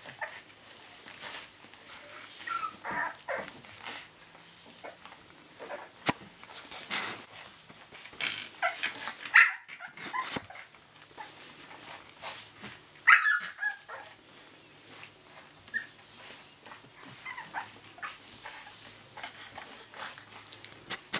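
A litter of young bulldog puppies making scattered short yips and whimpers, with two louder yelps about halfway through.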